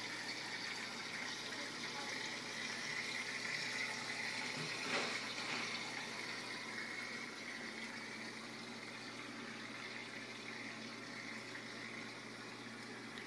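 Water pouring and splashing steadily into the surface of an aquarium from its waterfall or filter return, over a faint low hum, with a slightly louder splash about five seconds in.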